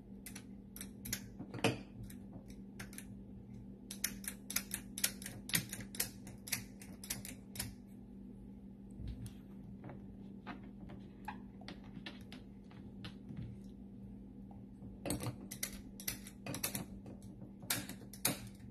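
Metal ice cream scoop scraping and clicking through firm vanilla ice cream in a tub, in three quick runs of sharp scrapes, over a faint steady hum.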